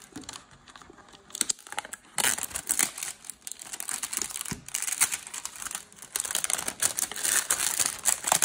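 Clear plastic shrink-wrap on a cardboard box crinkling and tearing as it is handled and peeled off by hand. A few light handling clicks at first, then continuous crinkling from about two seconds in.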